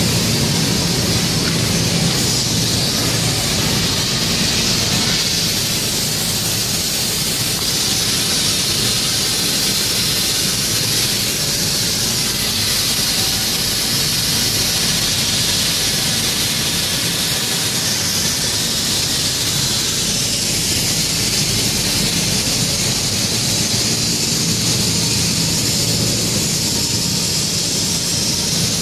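Flux-cored arc welding on stainless steel: the arc burns without a break, a loud steady hiss over a low hum.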